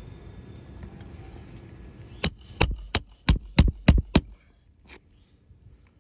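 A quick run of about eight sharp strikes, roughly four a second, as roofing nails are driven into an asphalt shingle during a repair with a roof snake tool. A low rumble runs under the first two seconds.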